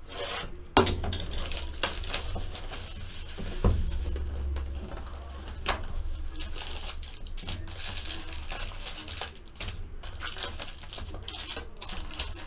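Clear plastic shrink wrap being torn and crinkled off a cardboard trading-card box, with irregular taps and knocks from hands handling the box; the sharpest knock comes about a second in.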